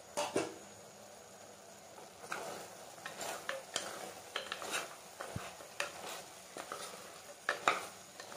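A spoon stirring mutton in a cooking pot: irregular clinks and scrapes against the pot over a soft sizzle as the meat cooks down in its own juices.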